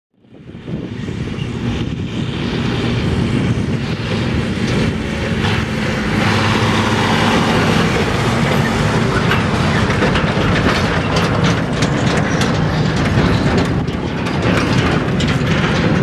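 A John Deere tractor running steadily as it tows a grain trailer across a stubble field, fading in over the first second, with sharp knocks that come more often in the second half.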